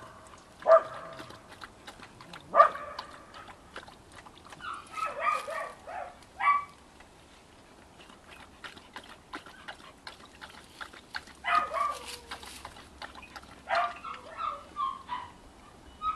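Dog whining and yelping in short high calls that come in bunches a few seconds apart, two sharp ones near the start, with faint clicking between them.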